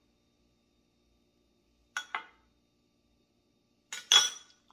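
A metal spoon clinking against a small glass bowl of sauce: two light clinks about two seconds in, then a louder cluster of clinks near the end.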